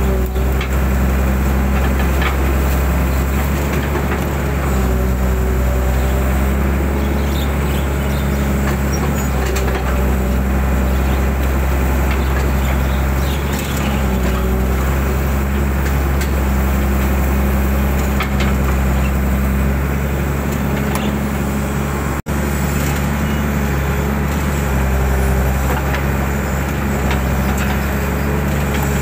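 Mitsubishi 120 hydraulic excavator's diesel engine running steadily at working revs, its note dipping and rising slightly as it takes load, with scattered faint knocks. The sound cuts out for an instant about two-thirds of the way through.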